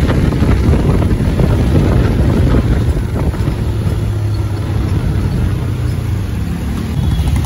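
Motorcycle riding steadily in traffic: wind buffeting the on-bike microphone over a steady engine and road rumble.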